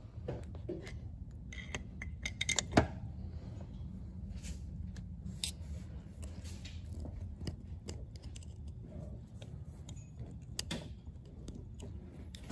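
Small metallic clicks and scrapes of a screwdriver working a coil spring into an automatic locker inside a differential carrier, with one sharp click just under three seconds in, over a low steady hum.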